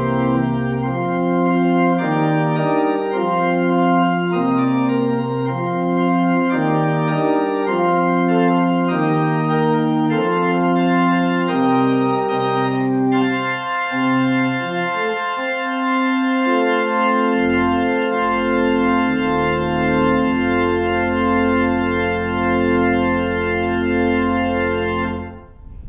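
Organ playing a slow chordal piece, the chords changing about once a second. About halfway through the sound grows brighter as more stops come in, and it ends on a long held chord over a low pedal note that cuts off just before the end.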